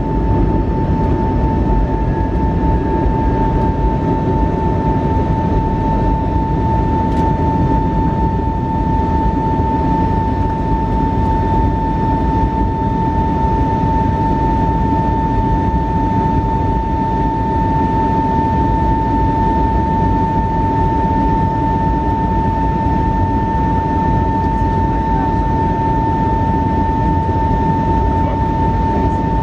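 Airbus A320neo heard from inside the cabin in flight: steady, loud engine and airflow noise with a whine held on one pitch throughout.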